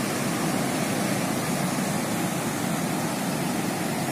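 Steady roar of ocean surf breaking on a beach, an even noise with no single wave standing out.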